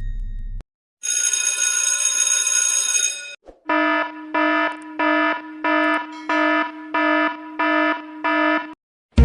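Alarm sound effects: a bright, continuous electric-bell-like ringing for about two seconds, then a buzzing alarm beeping about nine times in quick even pulses. A low rumbling effect cuts off right at the start.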